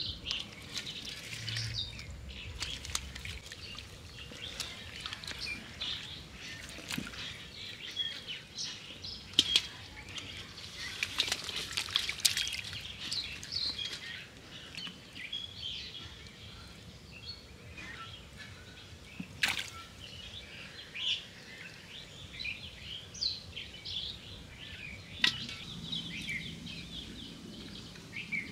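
Birds chirping on and off throughout, many short high calls, with light splashing of hands in shallow muddy water and a few sharp clicks.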